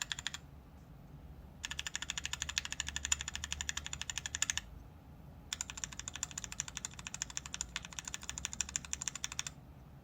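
Rapid typing on a mechanical keyboard fitted with stock, unlubed linear switches, in a sound test of the switches. It comes in three runs of fast, even keystrokes, about ten a second, with short pauses between.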